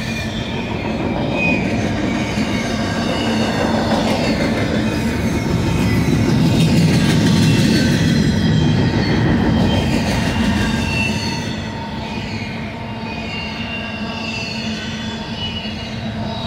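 Loaded double-stack container well cars of a freight train rolling past: a steady rumble of steel wheels on the rails with short, high wheel squeals coming and going. The rumble swells about halfway through, then eases off.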